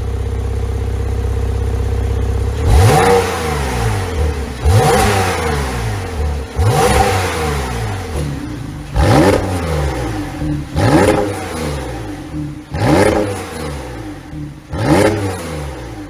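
2017 Porsche 911 (991) Carrera 4 GTS's twin-turbo flat-six idling, then blipped seven times, about every two seconds, each rev rising sharply and dropping back to idle. The engine runs a pop-and-crackle ECU tune.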